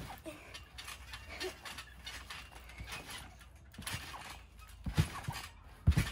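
People bouncing on a backyard spring trampoline: low thuds as feet land on the mat, with scattered clicks and creaks from the springs and frame. The two heaviest thuds come near the end, about a second apart.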